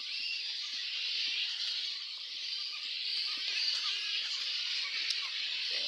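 A colony of flying foxes roosting in the trees, calling as a dense, steady chorus of high squeaks and chatter.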